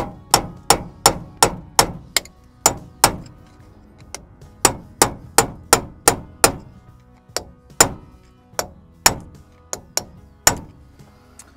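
Hammer driving a steel punch against the rusted locking nut on a Land Rover Series III front hub: about twenty sharp metallic blows in quick runs of about three a second, with short pauses between runs. The nut is not moving.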